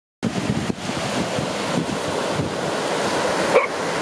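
A steady rushing noise, like wind on the microphone, with a brief yelp-like animal call about three and a half seconds in.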